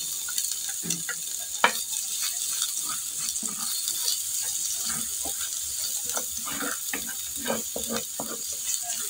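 Minced garlic sizzling in hot oil in a frying pan as it is sautéed, with a spatula repeatedly scraping and tapping against the pan as it is stirred.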